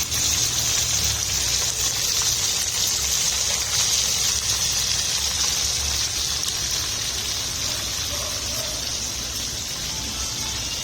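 Chicken frying in hot oil: a steady sizzling hiss.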